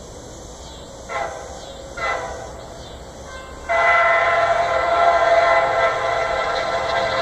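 Nathan K5LA five-chime air horn on a CSX SD60I locomotive. It gives two short blasts about a second apart, then a long, loud blast starting about three and a half seconds in.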